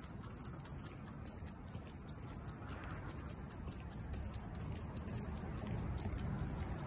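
American Cocker Spaniel's claws ticking on the pavement as it trots on its leash, several light ticks a second, over a low rumble that grows louder near the end.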